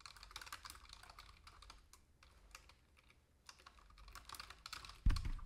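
Typing on a computer keyboard: quick key clicks in uneven runs with short pauses, then a dull low thump near the end.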